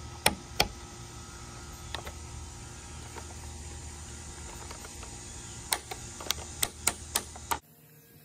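Sharp plastic-and-metal clicks from an OEM Toyota roof-rack cross-bar foot and its tool being handled and fitted: a few clicks in the first second, one around two seconds in, and a quick run of about six clicks near the end, over a steady low background noise.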